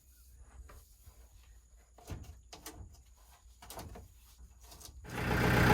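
A few light knocks and clunks, then about five seconds in the Kubota tractor's diesel engine starts on its new battery and settles into a steady run.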